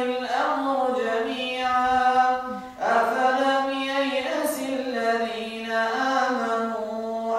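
An imam's Quran recitation, a male voice chanting in long, drawn-out melodic phrases; he pauses briefly for breath a little under three seconds in, then carries on.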